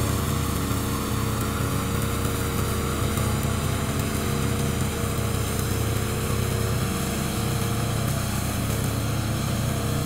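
Fuel-engined tracked remote-control lawn mower running steadily as it cuts through tall grass.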